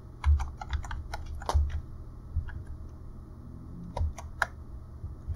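Typing on a computer keyboard: a quick run of about a dozen keystrokes in the first two seconds, then three more keys about four seconds in, as a password is entered at a terminal prompt.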